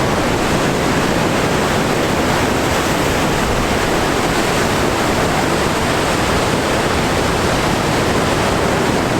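Big ocean surf breaking at a point, a steady rushing wash of water with no single crash standing out.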